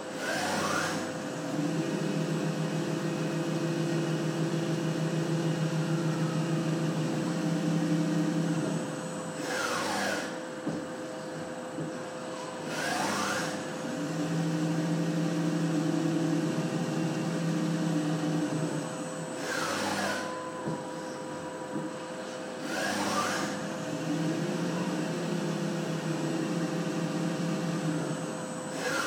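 CNC machine tool running a repeating machining cycle: a steady low hum for several seconds at a time, broken every few seconds by short rushing noises with a falling whine, over a constant high whine.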